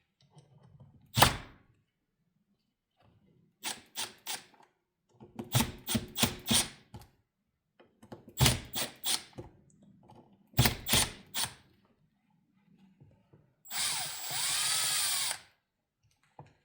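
Hand ratchet loosening the small bolts of a transmission valve body's solenoid block, clicking in four short bursts of rapid clicks after one sharp knock. Near the end a small power tool whirs for about two seconds.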